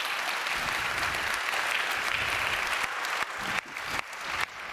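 Audience applauding, dense steady clapping that thins into scattered separate claps after about three seconds.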